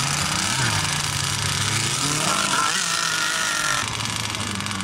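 Small engines of radio-controlled model racing boats running with a steady buzz. A higher-pitched engine whine comes in about two seconds in and cuts off near four seconds, all over wind noise on the microphone.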